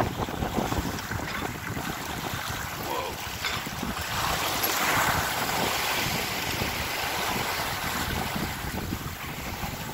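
Strong wind buffeting the microphone over the rush and hiss of breaking seas around a sailboat running downwind in a 25-knot wind with gusts to 35. About five seconds in, a wave swells up and hisses past.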